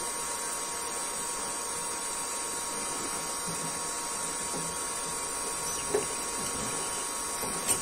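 Stearnel electric heat gun running steadily, a hiss of blowing air with a faint steady whine, as it melts plastic scraps into the break of a broken plastic fridge door shelf.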